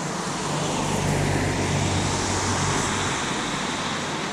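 Steady rain falling on wet pavement, with a passing vehicle's low hum swelling over the first second or so and fading toward the end.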